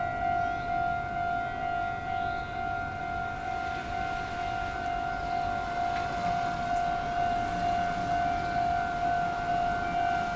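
Japanese railway level-crossing alarm ringing without pause, a single high electronic tone pulsing in an even, rapid rhythm.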